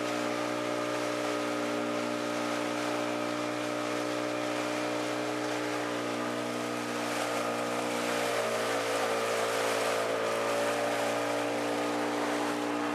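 Engine of a small wooden local boat running steadily under way, a constant pitched drone over the hiss of water and wind. The engine note sags slightly about eight seconds in and then comes back up.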